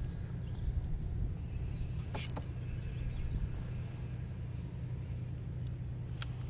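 Steady low hum of boat motors, with a short cluster of sharp clicks about two seconds in and a single click near the end.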